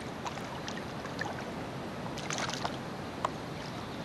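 Water sloshing and lapping at the surface, with small splashes from a hooked trout thrashing near the surface, a quick cluster of them about two seconds in and a single sharp splash near the end.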